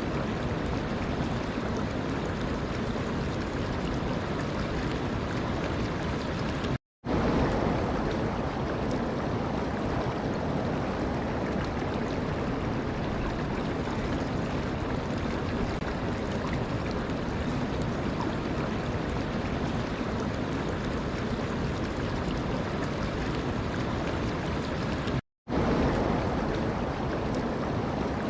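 Steady rush of flowing water. It cuts out to silence for a split second twice, about a third of the way in and near the end, and resumes a little louder each time.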